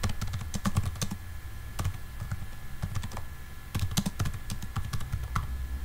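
Typing on a computer keyboard: quick, irregular runs of key clicks as a sentence is typed, with a brief lull in the middle.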